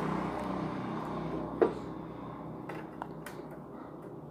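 A few short, light clicks from handling, the clearest about a second and a half in, over faint steady room noise.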